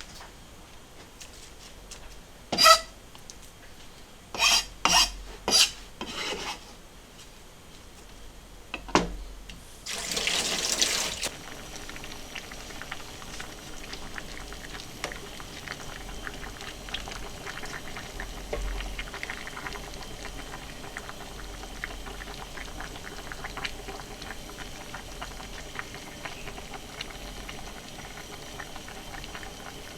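Kitchen cooking sounds: several sharp metal clinks of pots and utensils, the first ringing, then a brief rush of water about ten seconds in. After that comes a faint, steady fine crackle of a pot simmering.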